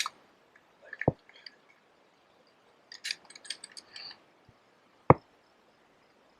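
Two handgun shots on a firing range about four seconds apart, the second the louder, with a run of light metallic clicks and clinks between them.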